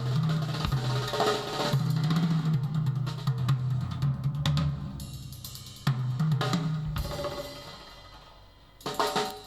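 Drum-heavy music with a steady bass line, played back through a handmade 'Matrix' two-way loudspeaker. The music thins out and fades from about six seconds in, then the drums come back in with sharp hits near the end.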